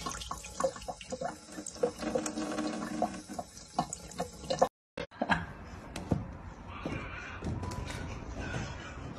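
Kitchen mixer tap running a thin stream of water into a sink, with scattered small splashes and clicks. It cuts off suddenly about halfway, and after a short silence a quieter stretch follows with a few scattered clicks.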